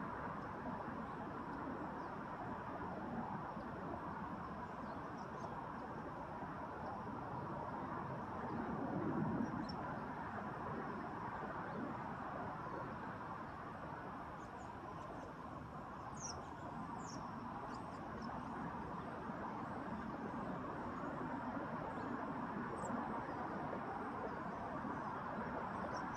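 Outdoor ambience: a steady, even background noise that swells slightly about a third of the way in, with a few faint, short, high bird chirps about two-thirds through and once more near the end.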